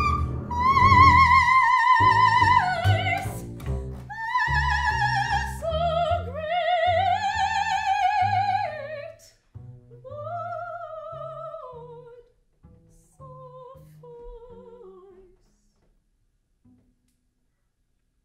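A soprano sings high, sustained notes with a wide vibrato over a bowed double bass. Her phrases step downward and grow quieter, and the bass's low notes thin out. Both die away about three seconds before the end.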